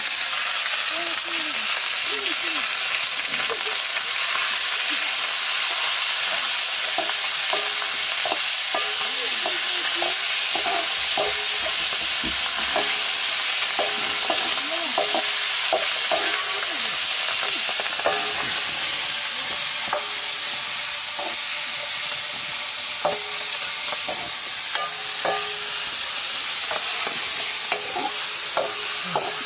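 Food sizzling in a wok over a wood fire while a metal ladle stirs it, scraping and clinking against the pan again and again.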